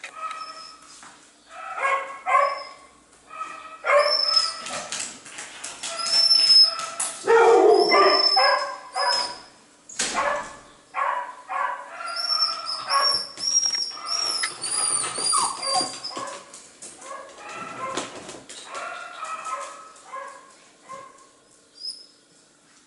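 A dog barking, yipping and whining in a long run of short calls, with high whining cries among them; the calls come thickest and loudest from about a sixth of the way in to the middle, and again a little past the middle.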